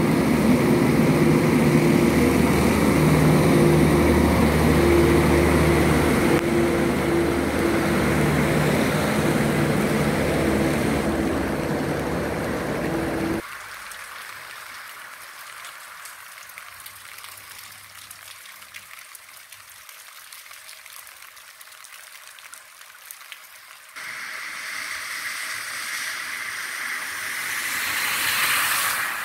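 A tractor's diesel engine running steadily close by, with the wash of rain water on the street, cut off abruptly about halfway. Then a quieter hiss of rain and running water, and near the end a car drives through standing water, the splash of its tyres rising.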